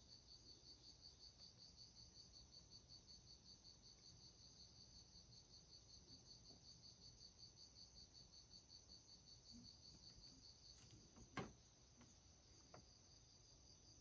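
Faint, high insect chirping, pulsing about five times a second, stops about eleven seconds in. Just after it stops comes a single sharp click.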